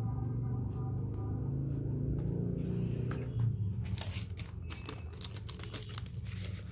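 Packaging crinkling and rustling in a run of sharp crackles as merchandise is unwrapped by hand, starting about four seconds in. A steady low rumble fills the first half.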